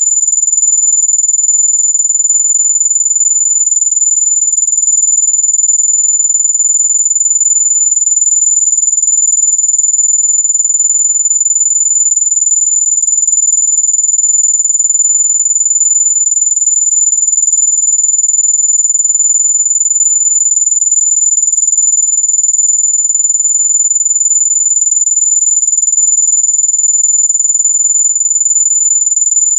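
Steady high-pitched electronic tone of a mosquito-repellent sound, one unbroken pitch at about 7 kHz that stays level throughout.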